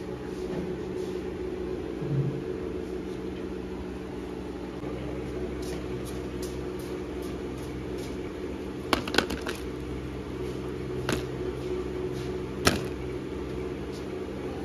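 A steady mechanical hum made of several even tones, broken by a few sharp clicks: a quick pair about nine seconds in, then single clicks near eleven and thirteen seconds.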